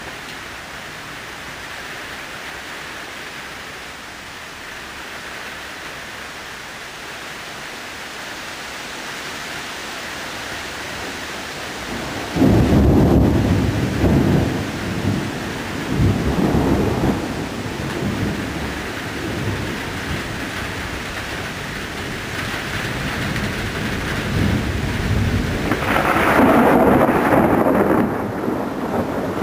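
Thunderstorm: steady rain hiss, then about twelve seconds in a sudden loud thunderclap that rolls on in several rumbles for a few seconds. A second loud rumble of thunder comes near the end.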